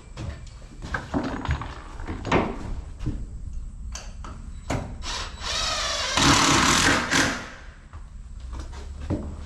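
Cordless drill-driver spinning up with a rising whine and running for about two seconds, driving a screw to fasten the glass panel, amid knocks and handling of wood and tools.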